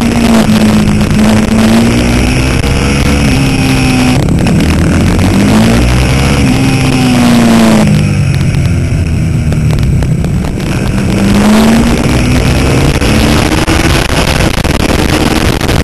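Supermoto motorcycle engine revving hard and easing off through corners, its pitch climbing on the throttle and dropping as it slows, several times over, with a constant rush of wind and road noise at the bike-mounted camera.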